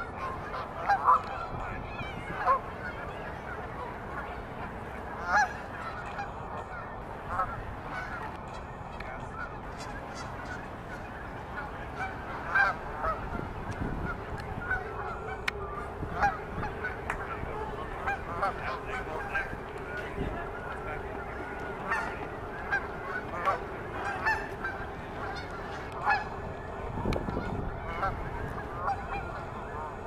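Geese honking, short calls repeated throughout, often several close together.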